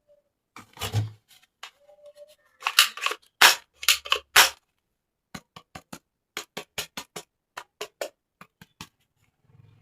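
Plastic toy packaging being handled, with loud crinkling and rustling for the first few seconds, then a quick series of sharp plastic clicks, about four a second.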